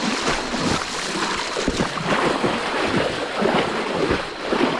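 Water splashing and churning continuously as someone wades and thrashes through a shallow stream, driving fish toward a helper who blocks their way.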